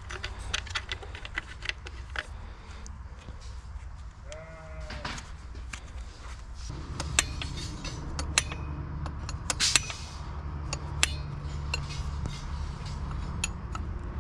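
A single bleat lasting about a second, about four and a half seconds in, over a steady low hum and scattered short clicks and knocks.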